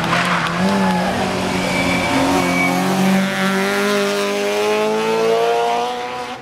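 Rally car engine revving high through a hairpin. Its pitch dips and wavers as it goes through the bend, then climbs steadily for several seconds as it accelerates away.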